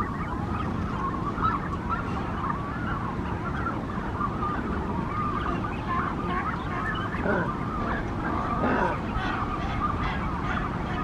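A nesting colony of Brandt's cormorants, with many birds calling at once in overlapping, wavering squawks over a steady low noise.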